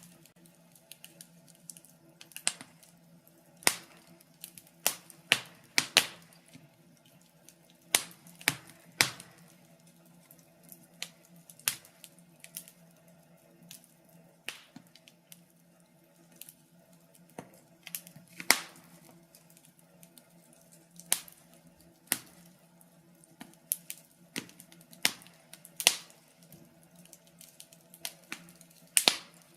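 Wood fire crackling in a fireplace: irregular sharp pops and snaps, some in quick clusters, over a faint steady low hum.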